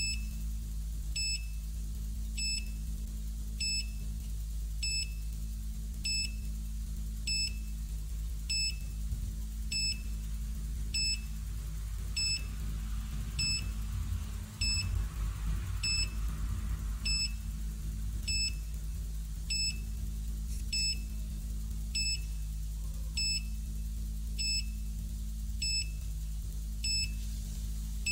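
Delta Pulse 3S ground scanner giving short, high beeps at an even pace, about one every 1.2 seconds, while a scan is running. A steady low hum sits underneath.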